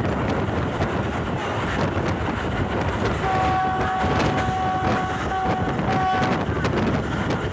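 Train's locomotive horn sounding a multi-note chord for about three seconds, one long blast then two short ones, over the steady running noise of the train and wind at the open carriage window.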